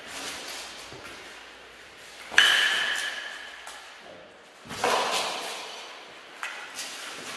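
Blows landing during armoured dagger sparring: a sharp strike about two and a half seconds in rings on with a metallic tone, and a duller clash follows about two seconds later, with lighter clinks of armour near the end, all echoing in a large hall.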